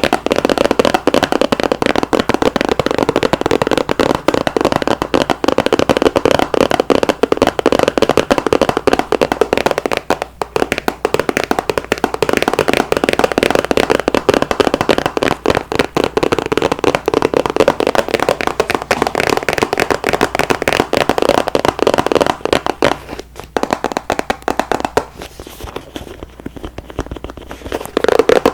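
Close-miked ASMR trigger sound: dense, rapid crackling and scratching clicks, like fingers or a tool working right at the microphone. It breaks briefly about ten seconds in and turns quieter and sparser for the last few seconds.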